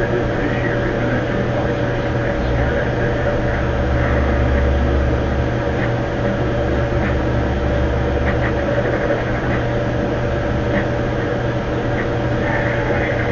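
Steady mechanical drone: a constant hum over a hiss, with a deeper low rumble that comes in about two and a half seconds in and drops away around nine seconds.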